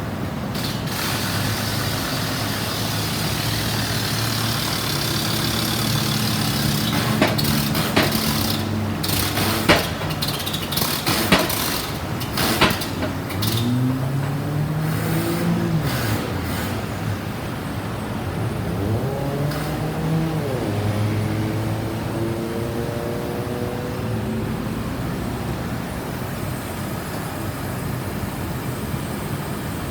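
Road traffic with heavy vehicle engines running, several of them revving up and back down in turn. A cluster of sharp clicks comes about a third of the way through.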